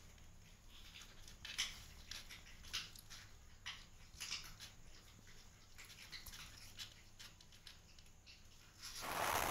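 Kittens' claws scratching and pattering on the cardboard floor of a box as they shuffle about, in irregular small scrapes and ticks. A louder rustle comes near the end.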